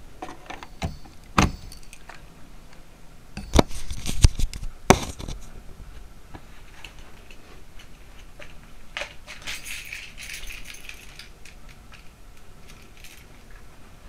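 Knocks and jangling clatter of small metal parts and tools being handled: several sharp knocks in the first five seconds, the loudest about four to five seconds in, then a softer rattle about ten seconds in.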